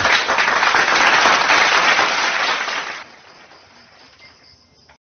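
Applause sound effect: a crowd clapping, loud for about three seconds, then dying down to a faint patter and cutting off abruptly near the end.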